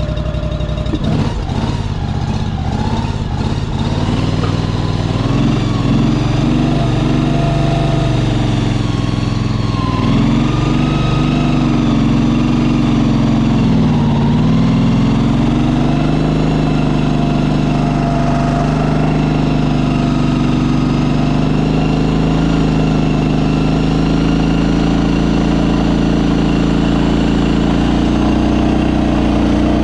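Shed Mule shed mover's engine running steadily as the machine drives, its pitch dipping and picking back up for a few seconds about a third of the way in. A few sharp knocks in the first few seconds.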